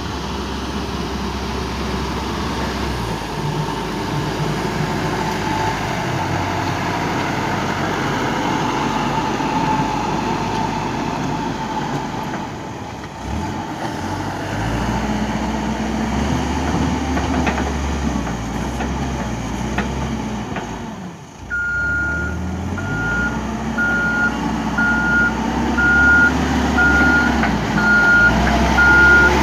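Cat 428 backhoe loader's diesel engine running and rising and falling in pitch as it works. About two-thirds of the way in, its reverse alarm starts beeping about once a second as it backs up.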